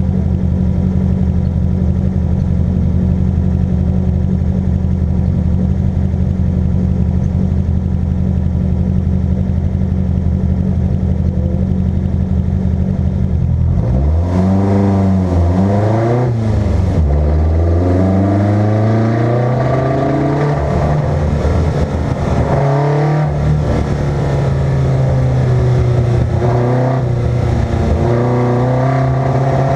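The Maxi car's engine runs at a steady pitch for about the first half. It is then revved twice and pulls away, its pitch climbing and dropping back at each gear change.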